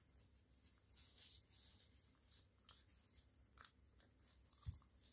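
Near silence with the faint rustling and small clicks of a puppy chewing and tugging a plush toy, and one soft low thump near the end.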